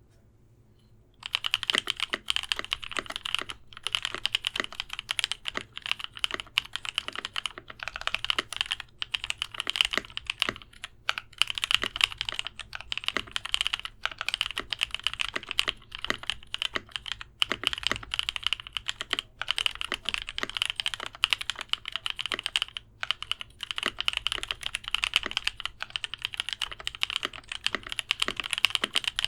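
Typing on an Idobao ID80 mechanical keyboard with lubed NovelKeys Cream linear switches and an acrylic bottom plate: a steady run of keystrokes with short pauses, starting about a second in.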